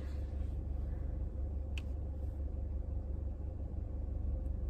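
Steady low hum of a car running, heard inside its cabin, with a single brief click a little under two seconds in.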